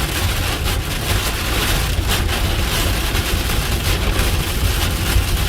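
Heavy rain beating on a moving vehicle, heard from inside the cabin, over a steady low rumble of road and engine noise.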